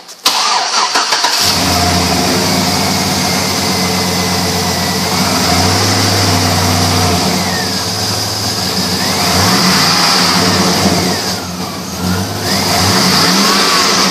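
2004 Chevrolet Avalanche's 5.3-litre Vortec V8 cranking briefly and starting, then running at idle, with the revs rising and falling a couple of times in the second half.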